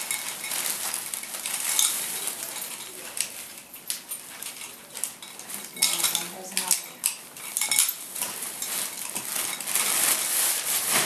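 Rustling and crinkling of vintage fabric being handled and dug through close to the microphone, with many small clicks and knocks of handling throughout.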